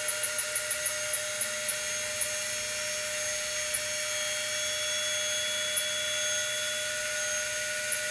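Wanhao Duplicator i3's Z-axis stepper motors driving the gantry upward, a steady whine with several held tones. Quick clicks from the control box's knob come over the first two seconds and a couple more later.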